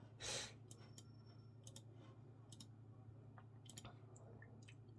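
A person with a congested head cold sniffing once, a short breathy rush of air about a third of a second in, followed by faint scattered clicks over a low steady hum; otherwise near silence.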